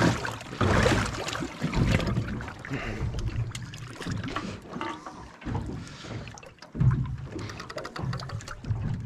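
Water slapping and sloshing against the stern of a small boat, with wind buffeting the microphone in uneven gusts and a few small knocks.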